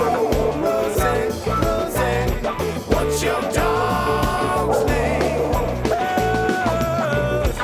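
Band music playing: an instrumental passage of an upbeat rock song with bass and drums and held melody notes.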